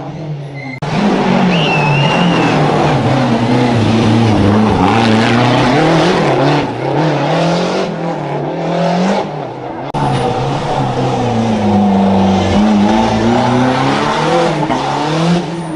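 Historic rally car engine driven hard on a rally special stage, its revs climbing and dropping over and over through gearshifts and lifts off the throttle. It comes in sharply about a second in.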